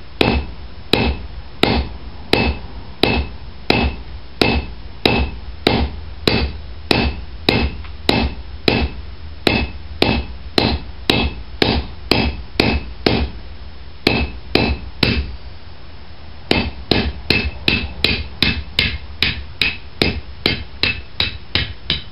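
Hand hammer striking a bar of hot 3/8-inch round steel on a hot cut, the bar turned between blows to cut it off to length. The blows come steadily at about one and a half a second, each with a short metallic ring. They stop briefly about 15 seconds in, then resume faster.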